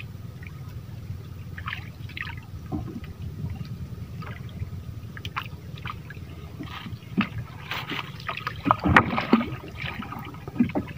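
Water splashing and gurgling around a small fishing boat as a second set line is paid out, with scattered knocks and clicks of gear against the boat over a steady low rumble. The splashing and handling get busier and louder about eight seconds in.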